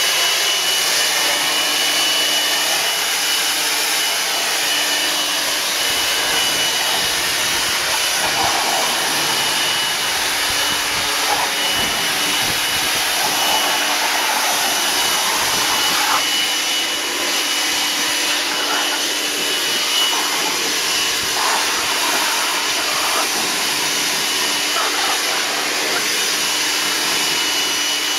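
Corded electric leaf blower running steadily: a loud rush of air with a thin steady whine, the air noise shifting a little now and then as the bullmastiffs mouth the nozzle.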